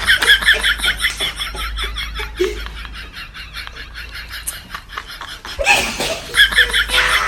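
A person laughing hard in a rapid, high-pitched run of laughs. The laughter fades about halfway through and breaks out again near the end.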